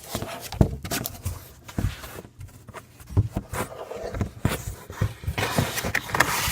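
Cardboard box and paper being handled: a run of irregular knocks and scrapes, with rustling near the end.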